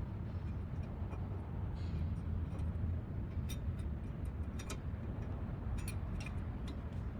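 A few light clicks and ticks as a new brake pad is slid into the spring clips on the caliper bracket, over a steady low hum.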